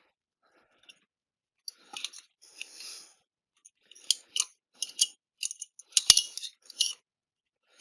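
Small clicks, rattles and scrapes as a motorcycle choke cable is worked into place by hand, with one sharp click about six seconds in.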